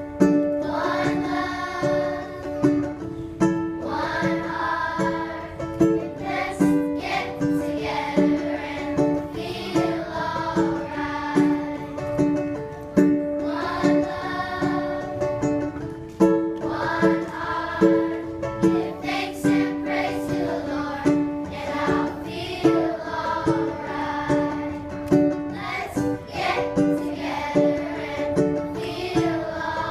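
Children's choir singing in unison to a strummed acoustic guitar, with a steady strumming rhythm under the voices.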